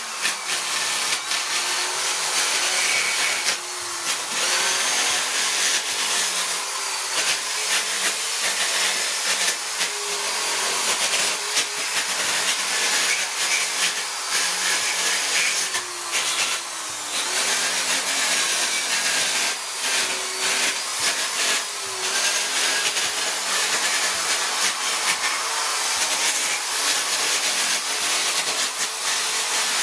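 Steady whirring hiss of an electric power tool running, with a faint wavering hum underneath and a few light clicks.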